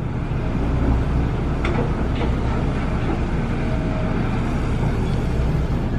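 Steady low rumble of heavy construction machinery working on the site, with a faint tick about two seconds in.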